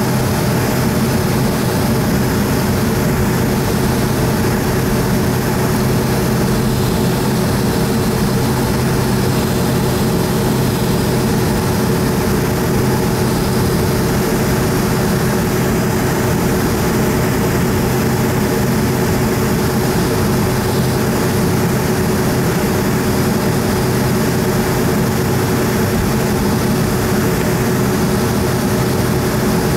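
Boeing 757-200 jet engines running steadily at idle as the aircraft taxis, heard from inside the cabin beside the wing: a level hum with a constant tone and no spool-up.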